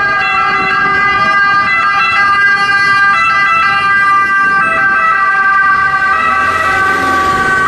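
Italian Red Cross ambulance's siren sounding loudly as the van drives past, a steady high tone that keeps switching between pitches. Road noise swells near the end.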